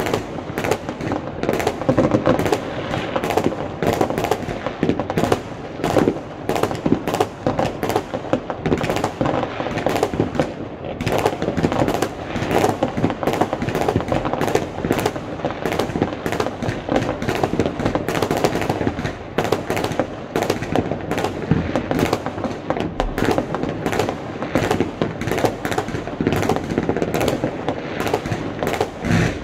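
Fireworks going off in many places across a city at once: a dense, unbroken barrage of overlapping bangs and crackles, with rapid strings of reports.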